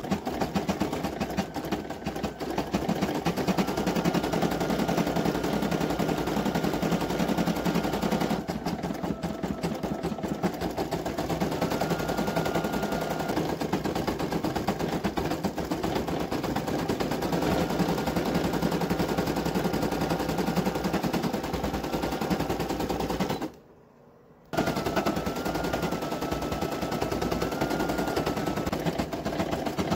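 Brother PE800 embroidery machine stitching out the letters of a name: a rapid, steady needle clatter. It breaks off for about a second near the end, then carries on.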